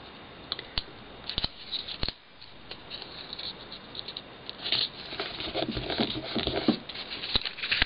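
Paper being handled and pressed down by hand: a few light clicks and taps in the first two seconds, then rustling and rubbing of paper against paper.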